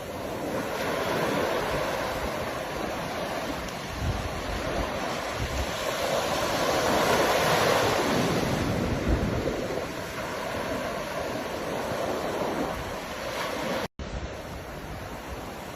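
Ocean surf breaking and washing on a shore, swelling to its loudest about midway and easing off again. The sound cuts out for an instant near the end.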